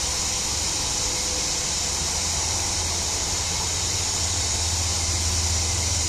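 A chorus of cicadas buzzing in a steady, high-pitched drone, with a low rumble underneath.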